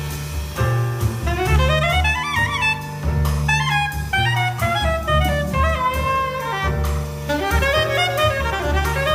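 Live jazz ensemble: a soprano saxophone solos in quick runs of notes that climb and fall, over a bass line and drums.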